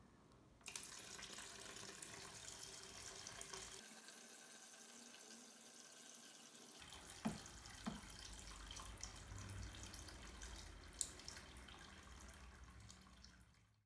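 Water streaming from a syringe used as an outlet valve at the base of a plastic tank and falling into a basin of water, a steady splashing trickle that starts about a second in, after the syringe is pulled open. A few short taps can be heard over it.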